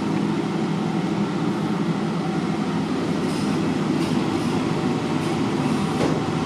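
Passenger lift car travelling down between floors: a steady, even rumble of the car in motion.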